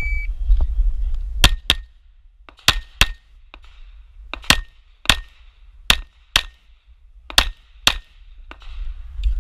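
Electronic shot timer beeps once, then a Glock 34 Gen4 9mm pistol fires about ten shots, mostly in quick pairs, over the next eight seconds. A low rumble runs under the start and again near the end.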